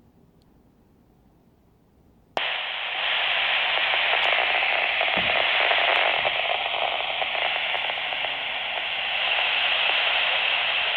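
Baofeng UV-5R handheld transceiver on UHF simplex, heard through its speaker: near silence, then a little over two seconds in the squelch opens with a sudden loud rush of static hiss that carries on, an incoming signal too noisy to copy as clear speech.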